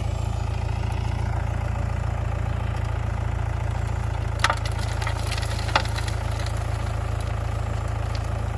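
Diesel engine of heavy machinery idling steadily, with two sharp knocks about four and a half and about six seconds in.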